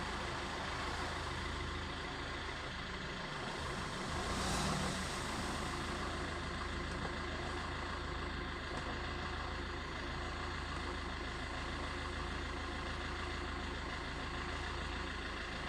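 Suzuki S-Cross diesel engine idling steadily at about 1000 rpm, heard from inside the cabin, with a brief swell of noise about four and a half seconds in.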